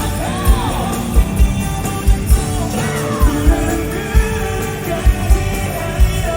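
Live pop-rock band playing at full volume with a singing voice over it and a heavy kick drum hitting in quick pairs.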